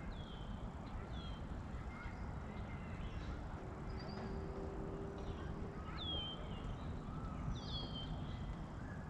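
Birds giving several short, high calls that slide downward in pitch, over a steady low rumble of wind on the microphone.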